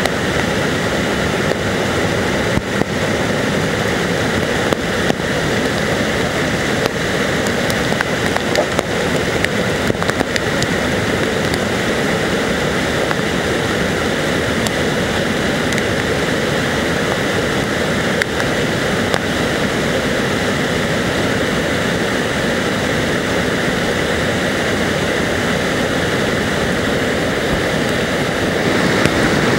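Barron Falls in full flood: a huge volume of floodwater pouring over the falls and crashing onto the rocks below, a loud, steady rush of water.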